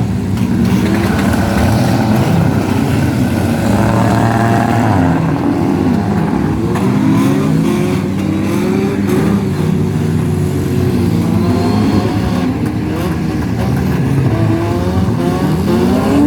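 Several demolition derby cars' engines revving at once, their pitches rising and falling as they accelerate and back off, overlapping throughout.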